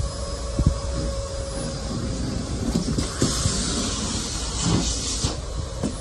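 Miele canister vacuum cleaner running with a steady motor whine, its wand nozzle knocking on a wood floor a few times. About halfway through, a louder rush of air lasts about two seconds as underwear is drawn against the nozzle.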